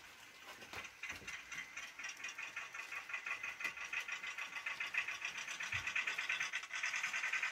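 Model diesel locomotive hauling a long freight train over the layout's track, a steady fast rattling whir that grows louder and cuts off suddenly at the end.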